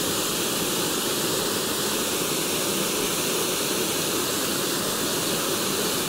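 Small waterfall pouring down a narrow rock chute into a pool: a steady, even rush of falling water.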